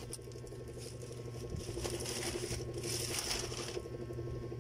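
Plastic packaging rustling and crinkling in short spells, over a steady low hum.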